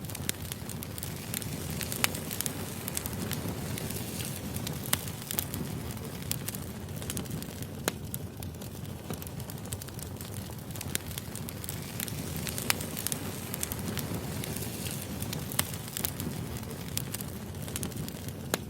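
Firewood burning: a steady low rumble of flames with sharp crackles and pops every few seconds.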